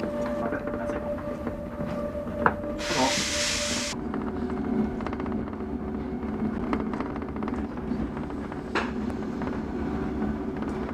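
Mont Blanc Express electric train running, heard from inside the carriage: a steady rumble with a motor tone that drops in pitch about four seconds in. About two and a half seconds in there is a sharp click, then a hiss lasting about a second.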